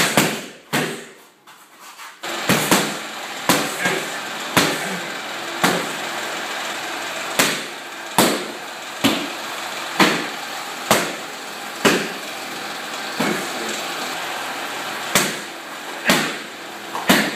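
Gloved punches and kicks smacking against leather focus mitts and a belly pad in Muay Thai pad work: about twenty sharp slaps in singles and quick pairs, over a steady hiss that starts about two seconds in.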